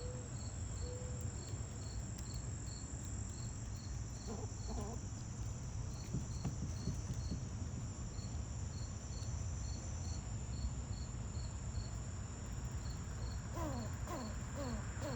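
Insects chirping steadily, one high pulsing chirp repeating about twice a second over a constant high buzz, with a low steady rumble beneath. A few short sweeping chirps come in near the middle and again near the end.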